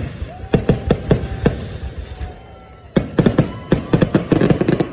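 Fireworks exploding: a string of sharp bangs in the first second and a half, a short lull, then a rapid volley of bangs near the end.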